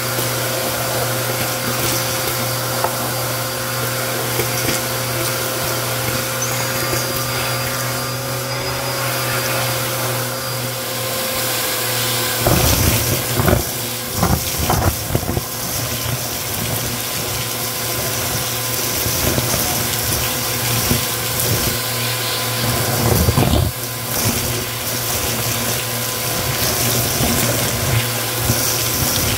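Bissell Helix vacuum cleaner running steadily through its hose and crevice tool on carpet, its motor giving a constant hum. About halfway through, and again briefly later, louder crunching and rattling bursts come as debris is sucked up the hose.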